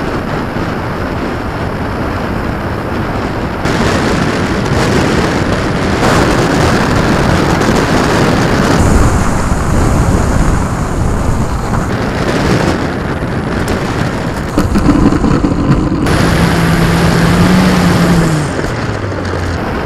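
Wind rushing over an onboard camera's microphone on an electric RC T-28 Trojan model, mixed with its motor and propeller, the noise changing abruptly several times. Near the end a steady motor-and-propeller hum drops in pitch as the throttle comes back.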